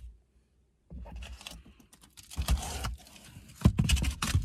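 Rustling and dull bumps as a person gets up and shifts about inside a car, with handling knocks on the handheld camera, in three short bursts.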